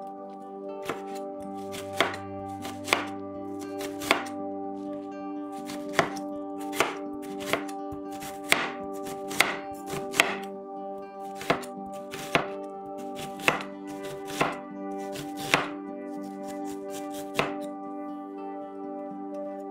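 Kitchen knife slicing an onion on a hard, polished cutting board: sharp knocks of the blade striking the board, irregular, roughly one a second.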